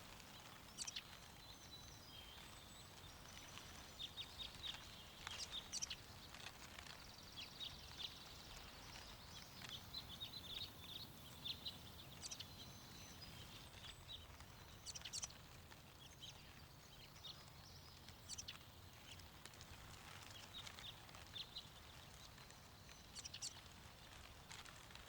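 Small birds chirping in short, scattered calls over a faint, steady low wind rumble.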